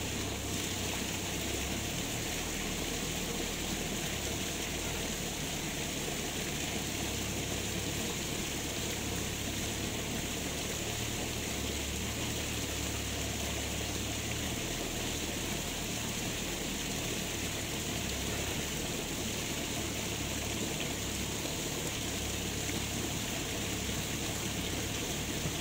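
Steady rushing of river water flowing with a strong current, an even unbroken noise with no distinct events.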